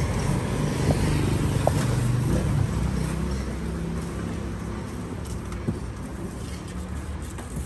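A motor vehicle's engine running, a low rumble that eases off after about three seconds, with a few faint clicks.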